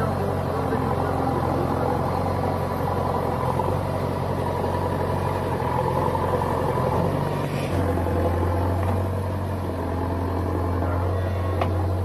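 Diesel engines of a JCB 3DX backhoe loader and a John Deere tractor running steadily with a low, even drone. About two-thirds of the way in, the low note changes to a steadier, stronger one.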